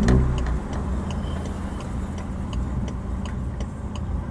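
Car interior with the engine running low and the turn-signal indicator ticking evenly about three times a second while parking. There is a low thump right at the start.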